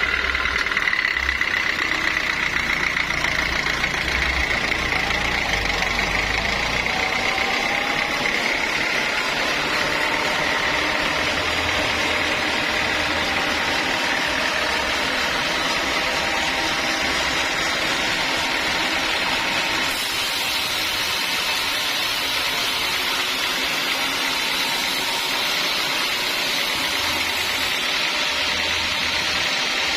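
Sawmill machinery running steadily, with a high whine in the first several seconds that fades out.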